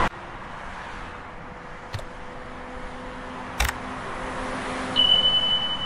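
Subscribe-button animation sound effects: two sharp clicks about a second and a half apart, then a steady high tone from about five seconds in, over a faint hiss and low hum.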